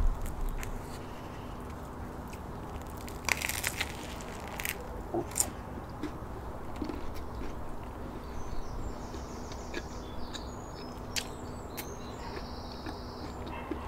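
A person biting and chewing a crusty baguette sandwich, with a quick run of crunches from the bread crust about three and a half seconds in. A few single crunches follow shortly after, then quieter chewing.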